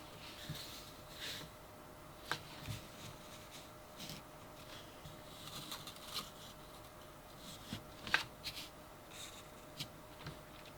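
Hands handling small items and packaging: soft rustling with scattered light clicks and taps, the sharpest about two seconds in and again about eight seconds in, over a faint steady hum.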